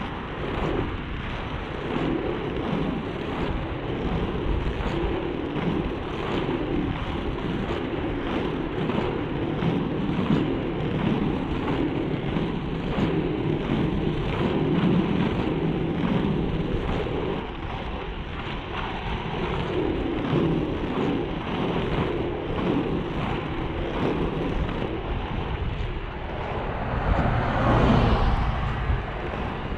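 FR325 inline skate wheels rolling on rough asphalt: a steady rumble with wind buffeting the microphone, swelling louder near the end.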